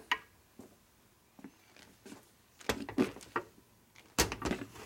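A few sharp metal clicks and knocks from a polished cam cover being handled and seated against a shovelhead's aluminium crankcase. A short quiet spell comes first, and the loudest cluster of knocks is near the end.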